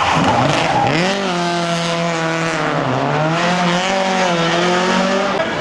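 Rally car's engine revving as it pulls away, the pitch climbing about a second in, dipping briefly near the middle and climbing again.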